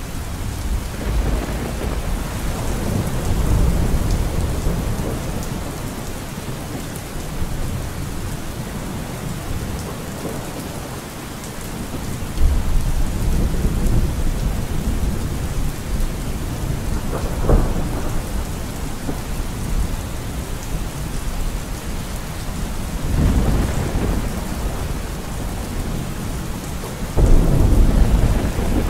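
Thunderstorm: steady rain falling with repeated rolls of thunder. A sharper crack comes about two-thirds of the way through, and a sudden loud rumble near the end.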